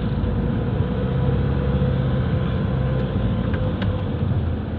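Nissan NV350 van heard from inside the cabin while driving: a steady rumble of engine and road noise with a faint steady hum tone over it, on a test drive listening for an abnormal humming noise.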